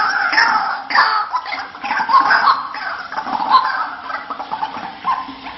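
White-breasted waterhen (ruak-ruak) calling: a fast, continuous series of repeated "kruak-kruak" notes played as a hunting lure, growing fainter near the end.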